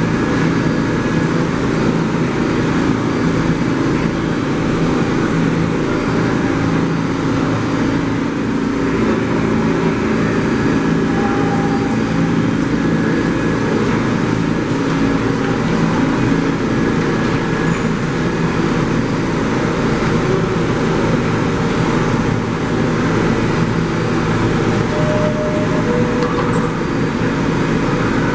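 Steady hum of a stationary New York City Subway R68 car standing with its doors open, its on-board equipment running, with several steady low tones.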